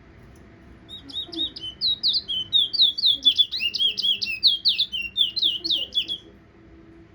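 Towa-towa (chestnut-bellied seed finch) singing a fast run of high, sweeping whistled notes, several a second, starting about a second in and stopping near the end.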